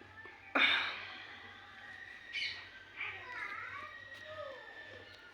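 A woman hiccuping: one sharp, sudden hiccup about half a second in and a smaller one about two and a half seconds in. Birds chirp faintly in the background in between.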